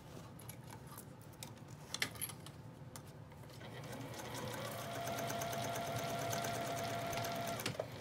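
Juki sewing machine starting about halfway through, speeding up and stitching steadily with a fast even rhythm, then stopping just before the end: basting fabric onto a zipper. Before it starts, a few light clicks of fabric and clips being handled.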